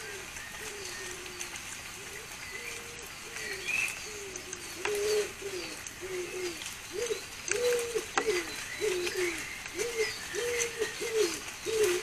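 Pigeons or doves cooing in a steady run of short, low notes, about two a second, louder from about four seconds in. Small birds chirp faintly higher up, and there are a few sharp clicks near the middle.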